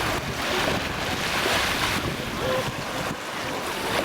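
Sea surf: waves breaking and washing onto the beach in swelling surges, with wind rumbling on the microphone.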